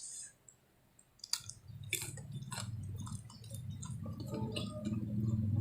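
Close-up eating sounds: scattered wet mouth clicks and smacks of chewing. About a second and a half in, a low steady hum comes in and grows louder.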